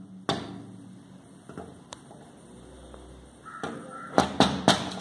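Indian grey hornbill tapping its bill against window glass: one sharp tap, then after a pause a quick run of four taps near the end.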